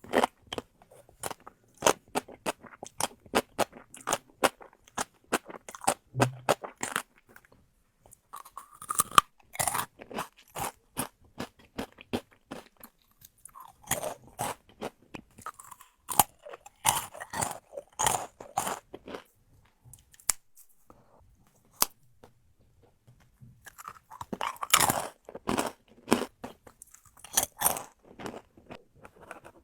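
Close-miked eating sounds: food being bitten and chewed with many sharp crunches and crackles, coming in clusters with short pauses between.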